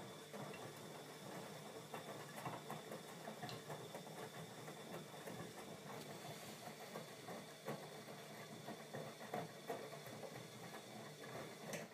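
Bosch Maxx 40 WFC2445 front-loading washing machine running, with a faint, irregular patter of water and laundry in the drum over a thin steady whine. It stops suddenly near the end.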